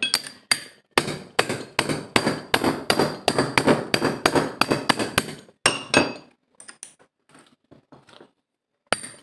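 A wrench working a bolt loose on an aluminium Honda power steering pump housing: rapid metallic clicking, about five a second. It slows to a few scattered clicks near the end.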